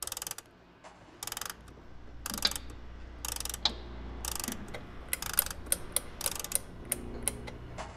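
A mechanism clicking and ratcheting in short rattling bursts about once a second, with sharper single clicks in the second half, over a steady low hum.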